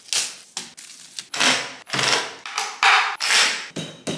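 Flat-pack furniture being assembled: a rapid series of short knocks and clatters of tools against the panels.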